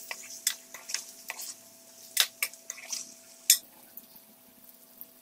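A metal spoon clinking and scraping against an aluminium pot while stirring fried taro root and potatoes. There are several sharp clinks in the first three and a half seconds, the loudest at the last of them.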